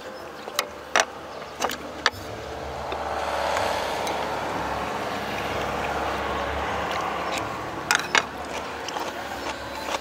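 Eating sounds at a close microphone: sharp clicks and taps, likely utensils on a bowl, in the first couple of seconds and again near the end, with a steady rushing noise that swells about two and a half seconds in and holds for some five seconds.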